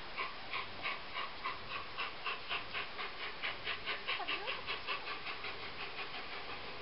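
Faint, even exhaust beats from the three-cylinder steam locomotive 60163 Tornado, a Peppercorn A1 Pacific, working slowly, about three to four beats a second and dying away near the end.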